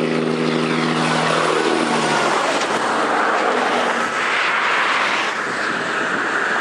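A motor vehicle passing close by: an engine hum that drops in pitch and fades about two seconds in, giving way to a loud, steady rush of road and wind noise.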